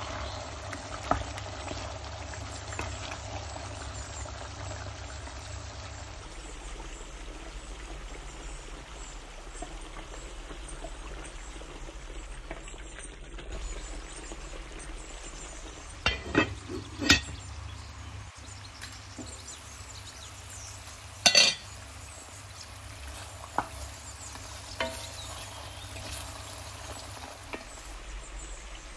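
Thick mutton curry simmering and sizzling in an enamelled cast iron pot, with a wooden spoon stirring it and knocking against the pot a few times, the loudest knocks about halfway through.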